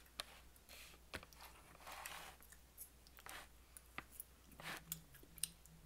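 Quiet eating at a table: a few faint clicks of a fork and soft chewing, scattered through otherwise near silence.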